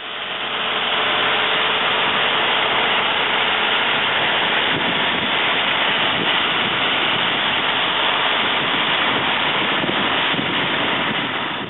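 Heavy farm machinery engine running steadily under a dense, even rush of noise, fading in at the start and out at the end.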